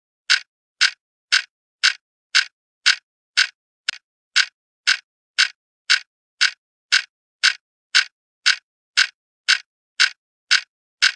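Clock ticking as a sound effect, steady at about two ticks a second, each tick short and sharp.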